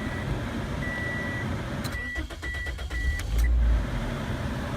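Toyota Corolla started by push button with the brake pressed: a few short electronic beeps, the starter cranks briefly about two seconds in, and the engine catches with a low surge a little after three seconds and runs on.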